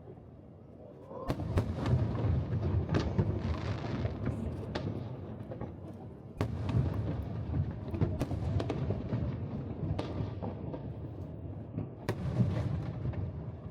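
Aerial fireworks bursting over the sea in a rapid barrage: sharp bangs and crackles over a continuous low rumble of booms. The barrage starts about a second in and picks up again twice with heavier bursts.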